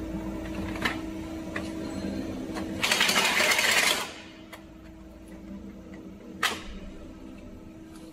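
Intercooler core builder machine humming steadily while aluminium tubes are loaded by hand. About three seconds in comes a loud, rapid rattling clatter lasting about a second as the tubes are swept into the comb slots, with a few sharp clicks around it, the sharpest about six and a half seconds in.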